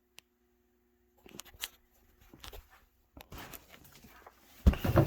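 Cardboard box being handled and turned: scattered rustles and light knocks, with one louder thump near the end.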